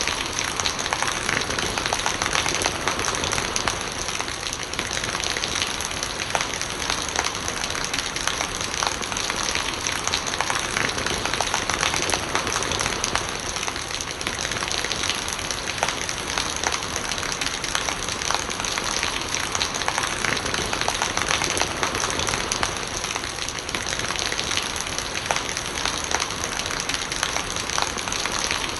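Steady rain, a dense, even patter of many small drops with no letup.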